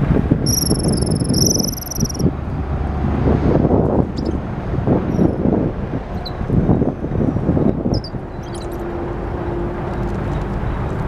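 Wind buffeting the microphone over a steady low engine rumble. A high, thin whistle lasts about two seconds near the start.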